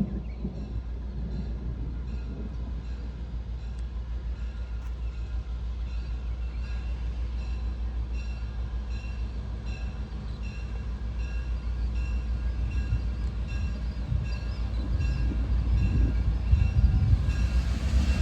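Diesel locomotive engine rumbling as the train approaches, growing louder over the last few seconds, while a bell rings steadily about twice a second.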